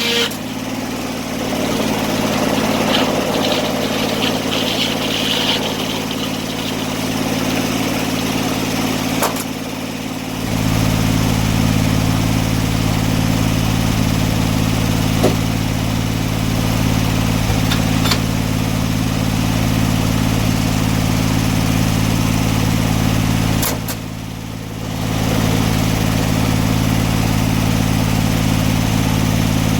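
An engine running steadily with a low, even hum. About ten seconds in its low tones grow stronger, and near the end it drops back briefly for about a second before picking up again.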